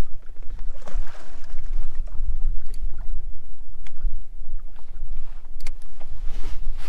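Wind rumbling on the microphone aboard a fishing boat, steady, with a few faint clicks and knocks.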